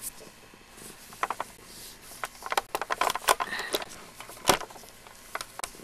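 Close handling noises: irregular bursts of crackling clicks, with one louder knock about four and a half seconds in.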